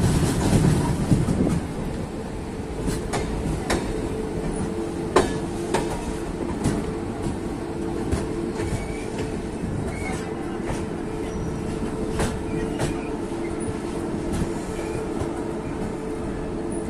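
Passenger express train running on the track: irregular sharp clicks of the wheels over rail joints over a steady rumble. Two faint steady tones hum underneath from about four seconds in.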